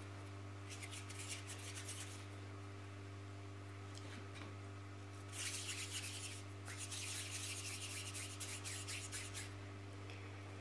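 Hands rubbing together and working soft sugarpaste between the fingers and palms: soft rubbing in several spells, the longest from about halfway through to near the end, over a faint steady electrical hum.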